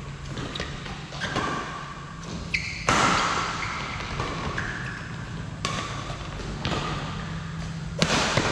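Badminton rally: rackets striking the shuttlecock with sharp cracks, the loudest about three seconds in, near six seconds and near the end, each ringing on in the large hall. Between the hits, shoes squeak briefly on the court mats.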